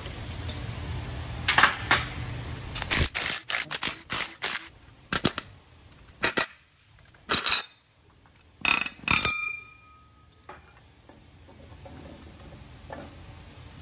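Metal parts of a differential being handled on a bench: a string of sharp clinks and knocks, one ringing briefly about nine seconds in. A low hum stops about three seconds in.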